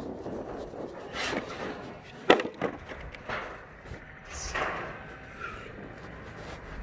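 Wood knocking and scraping as boards are handled, with one sharp knock a little over two seconds in and a few lighter knocks after it.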